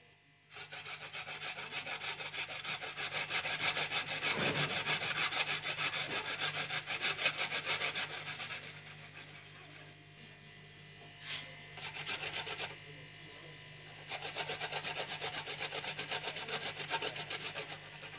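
Food being grated on a stainless-steel box grater: a peeled potato and then a red onion rubbed quickly up and down the blades in rapid rasping strokes. The scraping eases off into a quieter, patchier stretch in the middle before starting up again.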